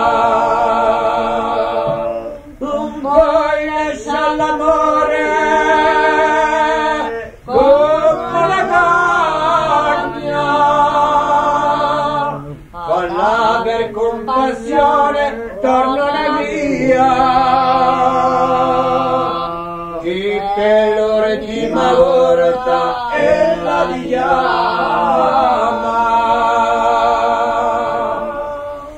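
Corsican song: several voices singing together in harmony, apparently unaccompanied, in long held notes with vibrato. The phrases break off briefly every few seconds.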